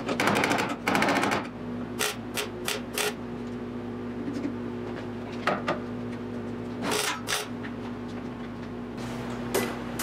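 MIG welder tack-welding a steel patch panel onto a car's sill: a crackling stretch of about a second and a half, then a run of short, sharp tack bursts, with a few more later, over a steady hum from the welder.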